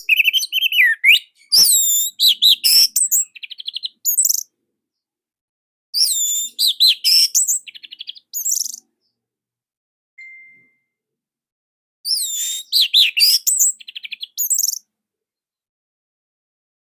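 Orange-headed thrush singing: three loud bursts of varied, high whistled phrases, each ending in a fast rattling run of notes, with silent pauses between them.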